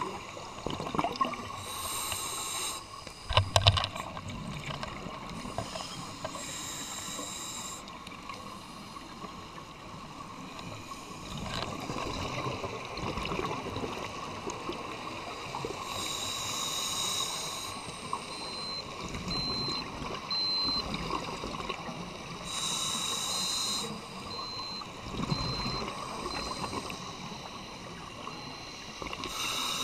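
Underwater scuba breathing: exhaled bubbles gurgle and hiss out in bursts every several seconds. A couple of sharp knocks come about three seconds in.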